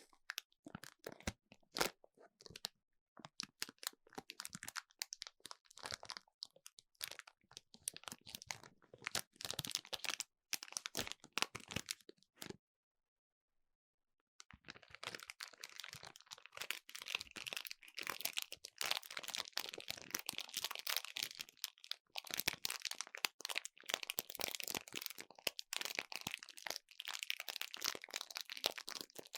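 Close-miked crinkling and crunching: a dense run of crackles, breaking off for about two seconds near the middle, then coming back thicker and more continuous.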